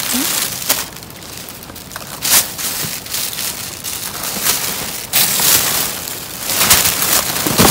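Thin clear plastic garbage bags crinkling and rustling as they are grabbed and pulled about, in uneven bursts that come and go.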